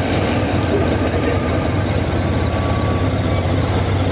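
Honda Crosstourer's V4 engine idling steadily, an even low hum with a fine regular pulse.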